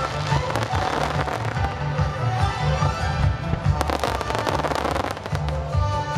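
Fireworks going off: bangs and rapid crackling from bursting shells and ground effects, with a dense run of crackles about four seconds in. Music with a pulsing bass plays throughout.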